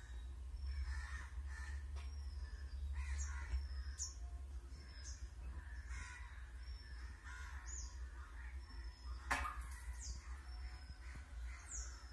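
Crows cawing on and off, with a small bird's thin high calls repeating about once a second. A sharp click comes about nine seconds in, over a steady low rumble.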